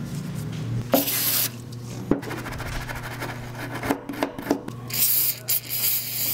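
A brake caliper slide pin being scrubbed with a wire brush in quick, even strokes, with a few knocks of parts being handled. About five seconds in, brake cleaner sprays onto the pin with a loud hiss.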